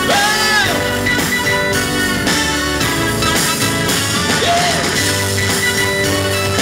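Indie pop band playing live: drum kit, electric guitars and keyboards, with a voice holding a short high note at the start and again a little past the middle.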